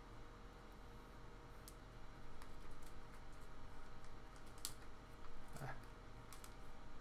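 Faint clicks and crinkles of a thin plastic penny sleeve being handled as a trading card is slid into it, the sharpest click about two-thirds of the way through.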